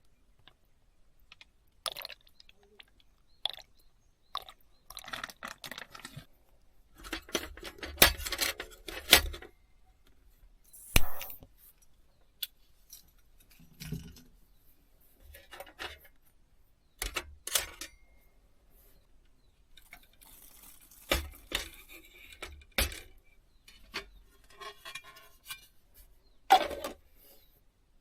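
Objects being handled: scattered clicks, knocks, clinks and rustling, with pauses between them.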